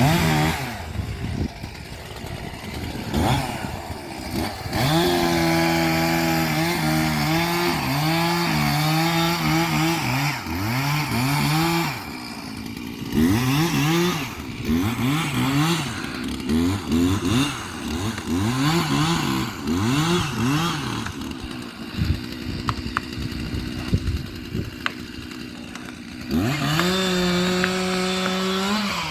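Chainsaw engine running. It is held at high revs for several seconds, then revved up and down over and over, drops back toward idle for a few seconds, and revs up again to a steady high pitch near the end.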